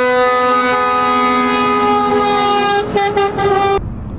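Truck air horn sounding a long, loud multi-note chord. The lowest note drops out about two-thirds of the way through, a few short choppy blasts follow, and the horn cuts off sharply near the end, leaving a low rumble.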